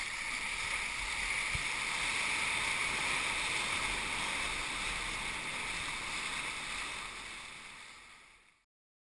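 White water and surf rushing around a kayak riding in on a broken wave: a steady wash that fades out near the end.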